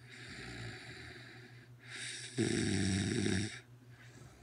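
A woman snoring in her sleep: a softer hissing breath, then about two and a half seconds in a loud rattling snore lasting about a second, which fades out shortly after.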